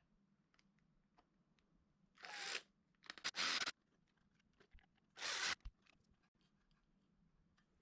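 Three short bursts of crinkling, tearing noise about two, three and five seconds in, with small clicks scattered between them, as of packaging or parts being handled.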